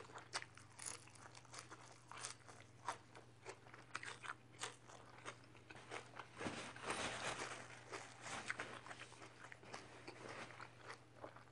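Close-up chewing of crunchy raw greens: many small crisp crunches, with a denser stretch of crunching about two-thirds of the way in. A faint steady hum lies underneath.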